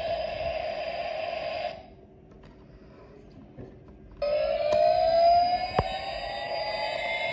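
Toy rescue helicopter's electronic sound effects from its small speaker: a steady effect cuts off about two seconds in, a few faint clicks follow, then a new effect starts a little past four seconds in with a siren-like rising pitch.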